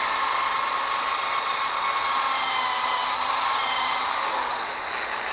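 Handheld power tool polishing an exhaust straight pipe, running steadily with a whine that wavers slightly in pitch over a hiss of the polishing on metal.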